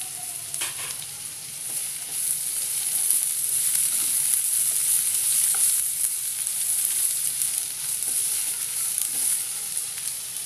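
Sliced onion, carrot and bell peppers sizzling in hot oil in a nonstick frying pan while a spatula stirs them. The sizzle gets louder about two seconds in, as the vegetables are tossed, and eases off near the end.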